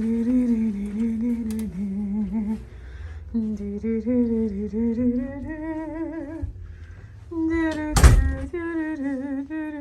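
A person humming a wordless tune in long held, wavering notes, with a short break partway through. About eight seconds in there is a single sharp thump.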